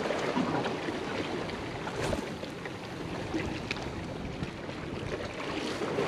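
Small sea waves washing and lapping against shoreline rocks, a steady wash of water, with one brief click about two seconds in.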